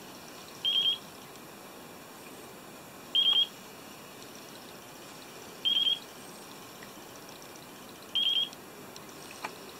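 Radio control transmitter beeping in bind mode: a quick, high-pitched triple beep repeating about every two and a half seconds, four times, which signals the transmitter is sending its bind signal to the receiver.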